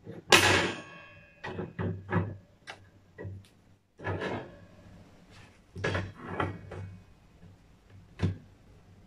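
Powder-coated metal wire dish rack parts knocking and clanking together as the second tier is fitted onto the side frames. The loudest clank comes about a third of a second in and rings briefly, followed by scattered lighter knocks and rattles.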